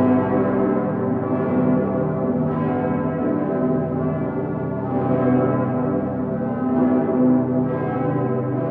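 The full festive peal of Cologne Cathedral's bells, including the great St. Petersglocke ("Dicker Pitter"), many bells ringing at once in a dense, overlapping wash. Fresh strikes cut in about every second or so.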